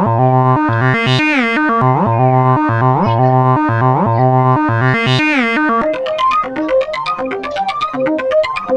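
Background music: a synthesizer line with notes that slide up and down in pitch, changing about six seconds in to a quicker melody of short, plucky keyboard notes.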